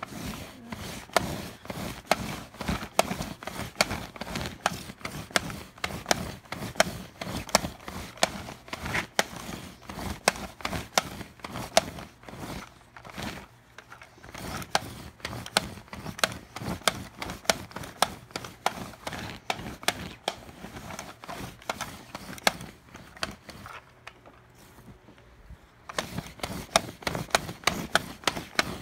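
Hand-held pet hair remover roller rolled back and forth over fabric bedding, giving a steady run of sharp clicks and rubbing as it picks up dog hair. It pauses briefly twice, about halfway and near the end.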